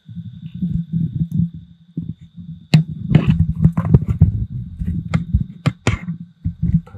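Machete chopping into a hollow tree trunk: a handful of sharp, separate strikes, the first about three seconds in and several more in the second half, over low rumbling handling noise.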